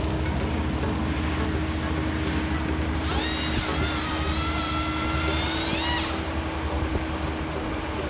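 Kubota compact excavator running steadily, a low engine drone with a steady hum. From about three seconds in, a high-pitched whine rises in pitch, holds and wavers, then rises again before cutting off near the six-second mark.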